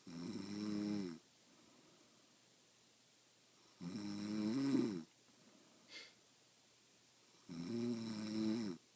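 A woman snoring in her sleep: three loud, pitched snores of about a second each, coming roughly every three and a half seconds.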